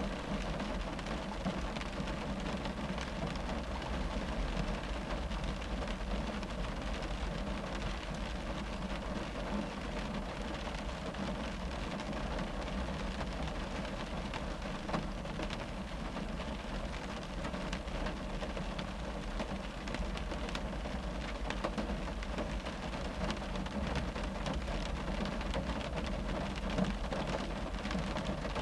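Steady rain drumming on a car's roof and windows, heard from inside the cabin: a dense patter of drops over a low, muffled rumble.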